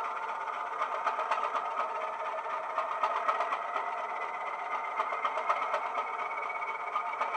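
DCC sound decoder in a model Class 205 'Thumper' diesel multiple unit playing the engine idling, a steady knocking diesel beat through the model's small speaker with no deep bass. A faint whine slowly rises in pitch from about two seconds in.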